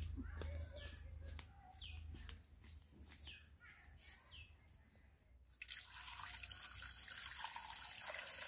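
Water dripping and splashing as freshly cut fish are washed: single plinking drops every half second to a second, then about two-thirds of the way through a steady pour of water splashing over them.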